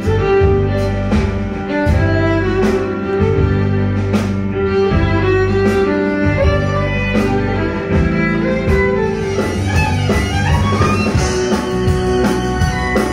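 Live violin playing a melody over a backing band, with a steady drum beat underneath.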